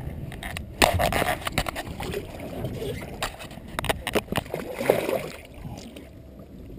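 Water sloshing and splashing at the side of a boat as a hooked permit is brought to the hull, with scattered sharp knocks and clicks.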